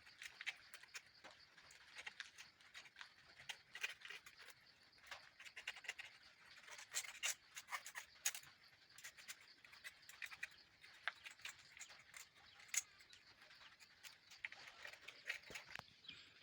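Faint, irregular scratching and small clicks of old dirt and grease being scraped out of an electric drill's gearbox housing.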